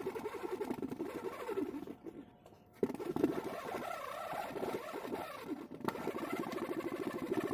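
Honey bees buzzing, a dense crackly hum. It drops away briefly about two seconds in and comes back abruptly.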